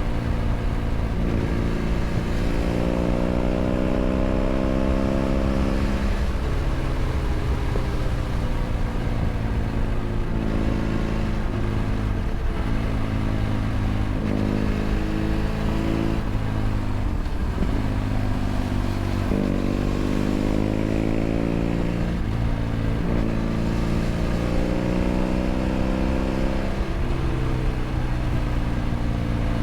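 BMW F800 GS's parallel-twin engine through a LeoVince LV ONE EVO stainless aftermarket exhaust, heard onboard while riding. The engine note climbs and drops several times as the revs rise and fall, over a steady low rumble.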